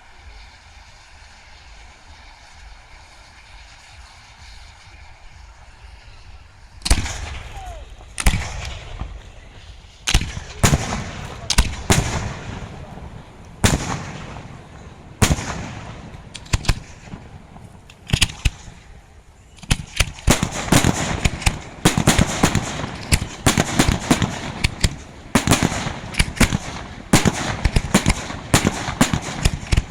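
Aerial fireworks display: single shell bursts bang one to two seconds apart with echoing tails, then about two-thirds of the way in a dense rapid barrage of bangs and crackles takes over.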